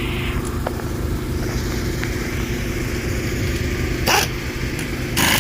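A vehicle engine idling with a steady hum, broken by two short, loud bursts of noise near the end.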